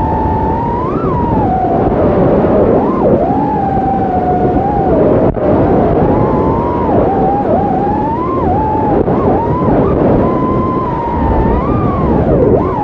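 Brushless motors of a small FPV quadcopter whining, the pitch sweeping up and down quickly and unevenly with the throttle, over a constant rush of propeller and air noise.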